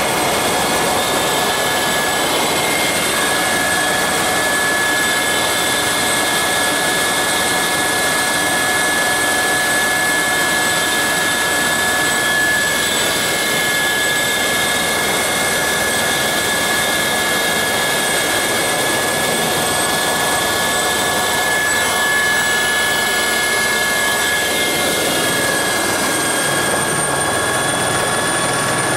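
Helicopter in flight heard from inside the cabin: a steady high engine whine of several tones over a dense rushing of rotor and airflow noise, as it slows on its approach to land. The highest whine rises slightly near the end.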